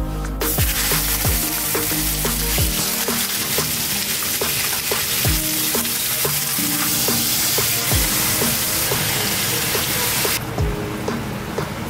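Whole fish sizzling as they fry in hot oil in a wok, a steady crackling hiss that cuts off suddenly near the end.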